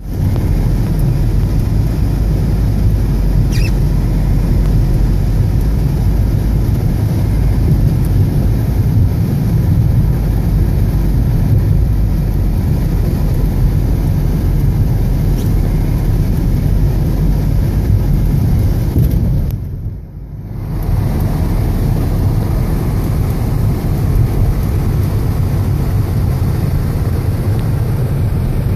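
Steady low rumble of a car driving, heard from inside the cabin: road and engine noise. It dips briefly about twenty seconds in.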